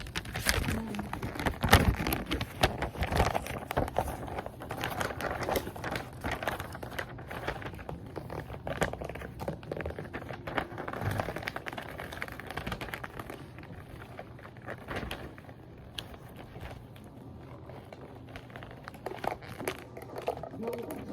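Gift-wrapping paper crinkling and rustling in irregular crackly bursts, busiest in the first few seconds.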